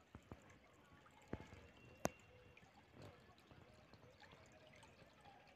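Near silence broken by a few sharp clicks, the loudest about two seconds in.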